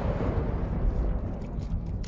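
Long rolling rumble of a large 10-go (30 cm) aerial firework shell's burst, echoing and slowly fading after a sharp boom.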